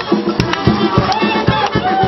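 Loud traditional carnival dance music with a quick, steady drum beat of about four strokes a second.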